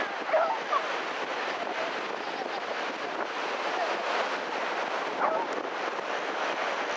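Steady rushing outdoor noise with no rhythm or clear pitch, with a few brief faint voices near the start and again about five seconds in.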